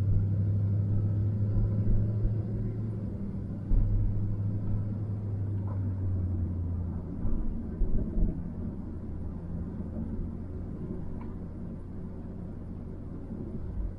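Van engine and road rumble heard from inside the cabin while driving: a steady low drone that drops away about halfway through, with a few low thumps.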